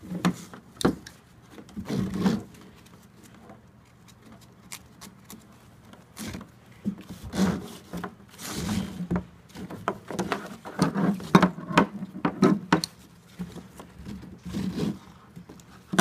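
Nylon harness webbing rubbing and sliding through slots in a molded plastic swing seat, with scattered knocks and clicks from the plastic shell and buckles as the straps are handled.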